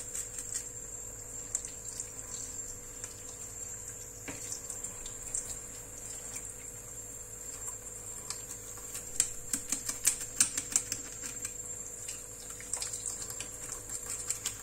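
Small knife clicking and scraping on a fish as it is gutted and cleaned by hand: a scattered run of light ticks, busiest a little past the middle. A faint steady hum runs underneath.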